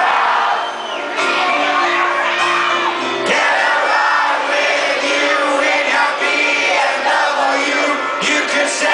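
Rock band playing live with a sung vocal, and the crowd's voices mixed in, shouting and singing along.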